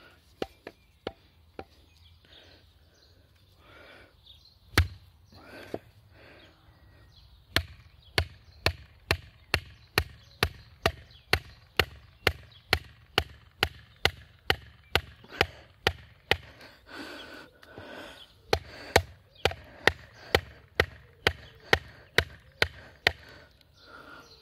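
Wooden baton striking the spine of an Albainox fixed-blade knife to split a log round (batoning): a few scattered knocks at first, then a steady run of hard knocks about two a second through most of the rest.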